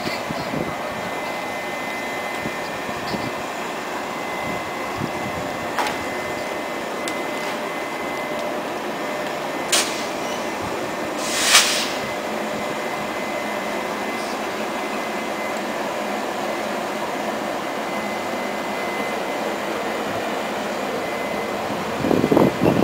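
Taiwan Railway E200-series electric locomotive running with a steady mechanical whir from its equipment, and two short hisses about halfway through.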